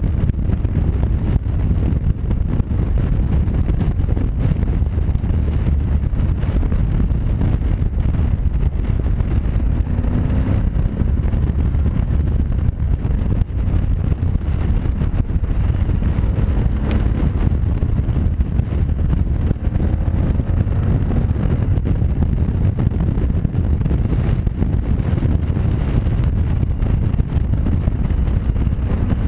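Wind rushing over the microphone of a camera mounted on a moving Honda Varadero motorcycle, with the bike's V-twin engine running as a steady low drone underneath. A faint tone rises briefly twice.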